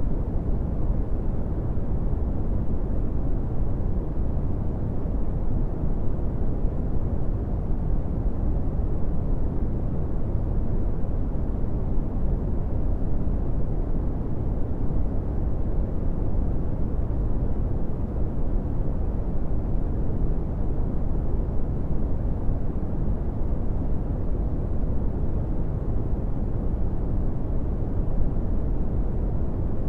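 Steady brown noise: an even, deep rushing hiss with its weight in the low frequencies, unchanging throughout.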